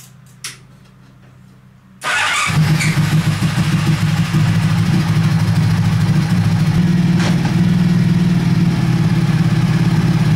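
Honda VF1000 V4 motorcycle engine in a buggy starting about two seconds in, after a low quiet hum, then running steadily.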